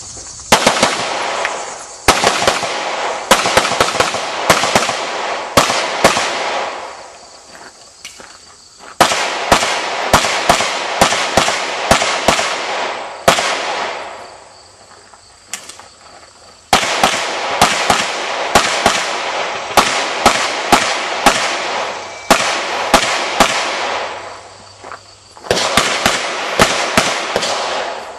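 Pistol fired in rapid strings of shots on a practical-shooting stage: four quick runs of sharp reports separated by pauses of about two seconds.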